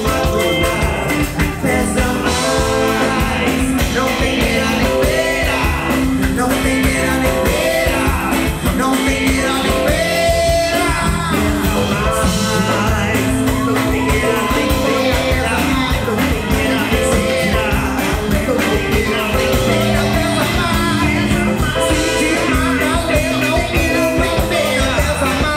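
Brazilian MPB band playing live: drum kit, bass, guitar, keyboard and percussion keeping a steady beat, with singing over the band in places.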